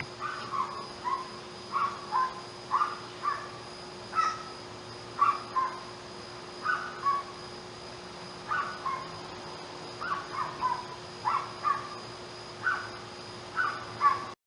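Short animal calls repeated throughout, often in pairs, each call dropping in pitch. A faint steady hum runs underneath.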